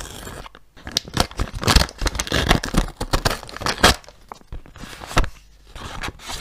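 Handmade paper surprise packet of crinkly paper being torn open and its contents pulled out: tape peeling, paper tearing, rustling and crinkling. The loudest tearing and rustling comes between about one and four seconds in, then quieter paper handling.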